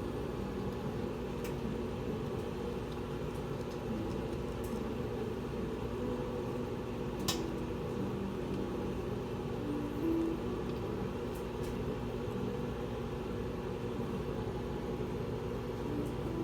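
Microwave oven running with a steady hum while an egg heats inside, with one sharp click about seven seconds in.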